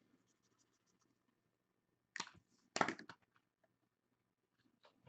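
Mostly quiet, with a few short, sharp clicks and taps, the loudest cluster about three seconds in.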